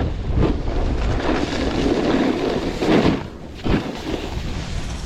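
Wind buffeting the microphone during a fast snowboard run: an uneven rushing noise with heavy low rumble.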